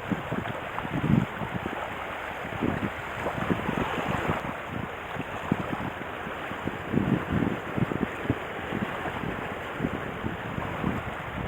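Wind buffeting the microphone in irregular low gusts over a steady rush of water.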